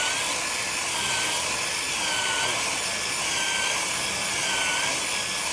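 Bowling ball turning in a resurfacing spinner with a hand-held abrasive pad pressed against it, scuffing the ball's surface. The sanding makes a steady scratchy hiss, over a machine whine that dips in pitch about once a second.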